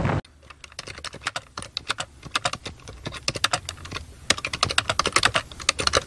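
Rapid, irregular clacking of keys on a computer keyboard being typed on.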